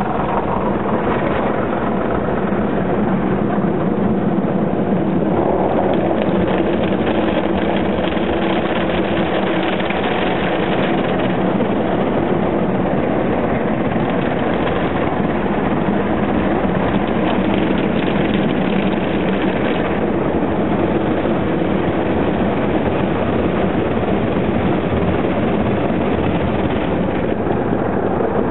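Automatic car wash running over the car, heard from inside the cabin: rotating brushes and water spray sweeping across the windscreen and body, a loud, steady whirring rush with a low machine hum underneath.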